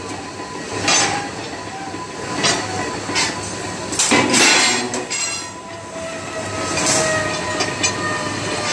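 Bolt-threading machine running and cutting thread on steel rod, with clanks of metal on metal, the loudest a cluster about four seconds in, and a thin squeal that sets in past the middle and slowly falls in pitch.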